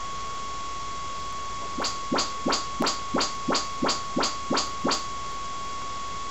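Audyssey auto-calibration test signal from an Onkyo receiver: ten quick rising chirps, about three a second, played through the left rear surround speaker while the setup microphone measures the room. A steady high whine runs underneath.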